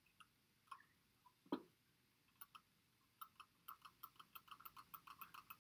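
Faint clicking of a computer's pointer button: a few scattered clicks, then a quick run of about four to five clicks a second from about three seconds in, as a dashed line is drawn click by click. A single duller knock comes about a second and a half in and is the loudest sound.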